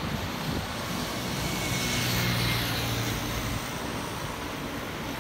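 Engines of a twin-engine narrow-body jet airliner on final approach: a steady noise with a low hum that swells about two seconds in, then cuts off suddenly about three and a half seconds in, leaving a fainter steady hiss.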